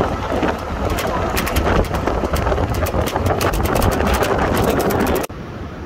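Wind buffeting the microphone, crackling, over a low engine rumble; about five seconds in it cuts off abruptly to a quieter steady hiss.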